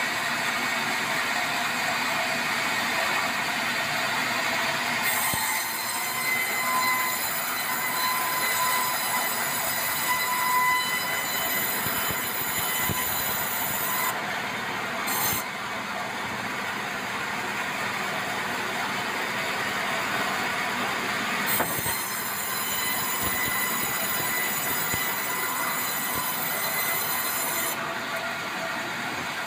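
Band sawmill cutting an unbarked meranti log: the saw runs steadily, and a high-pitched whine from the blade in the cut comes in twice, from about five seconds in to about fourteen, and again from about twenty-one to twenty-eight seconds.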